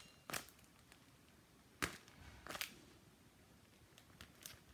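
A handmade paper squishy crinkling as it is handled: a few sharp, separate paper crackles, the loudest about two seconds in, with quiet room tone between.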